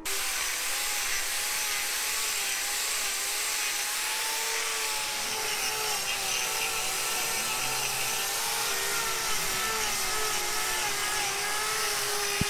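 Electric angle grinder running steadily, its disc grinding down the horn of a cow's hoof during trimming, with a slightly wavering whine over a hiss.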